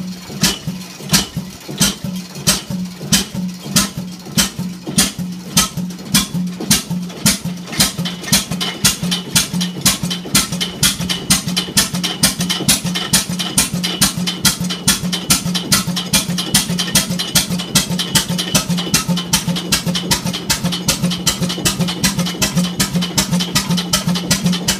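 Old stationary diesel engine with a large flywheel, just hand-started, firing in distinct beats. The beats come slow and uneven at first, about one a second, and quicken to several a second as the engine picks up speed, over a steady hum.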